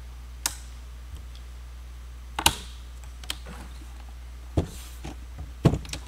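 A handful of sharp clicks and knocks from a Panasonic Toughbook CF-30 rugged laptop being handled and turned over onto a table, the loudest about two and a half seconds in.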